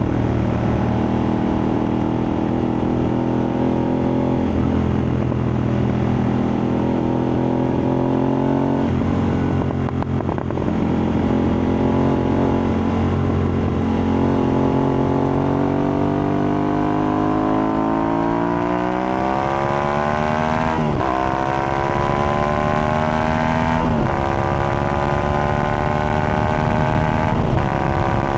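Aprilia Tuareg 660's parallel-twin engine through a replica Akrapovic exhaust, running at a steady speed for most of the time. Near the end it accelerates, its pitch rising, with three quick upshifts where the pitch drops and climbs again.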